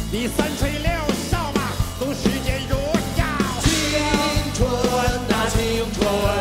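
Live rock music: a band playing with a steady drum beat under a lead melody that slides up and down in pitch.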